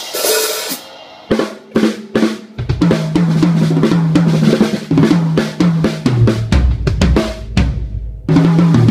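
Drum kit played at a sound check. A crash opens it, then a few single hits, then a steady beat from about two and a half seconds in, with low held notes underneath that step down in pitch. It stops briefly near the end.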